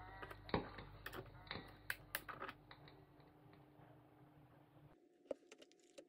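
Plastic flip-out feet on the underside of a keyboard being snapped open and shut: a string of quiet clicks over the first two and a half seconds, then a single knock near the end as the keyboard is handled.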